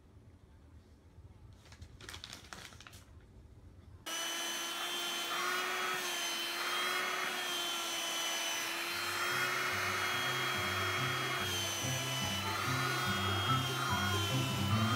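Quiet for about four seconds with a faint rustle, then a handheld vacuum cleaner starts suddenly and runs steadily as it is passed over a cat's fur, its sound swelling and easing with each pass. Background music with a stepping bass line comes in partway through.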